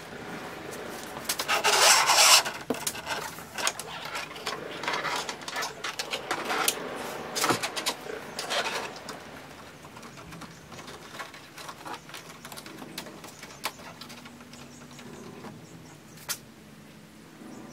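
Rubbing and scraping as a methanol-injection line is pushed and tucked under the car's carpet and interior trim, loudest about two seconds in, with scattered clicks, growing quieter after about ten seconds.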